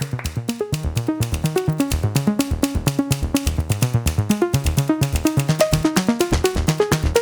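Background electronic music with a fast, steady beat and quick repeated synth notes.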